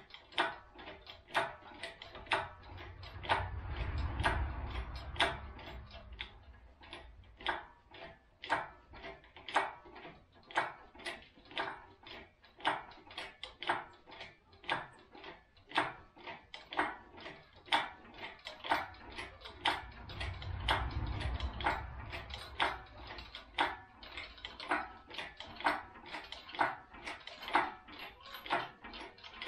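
Hydraulic engine hoist's hand pump being worked stroke after stroke, a sharp click with each stroke about once a second as the ram lifts a hanging engine. A low rumble swells and fades twice.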